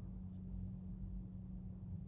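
Quiet background with a steady low hum and no other activity.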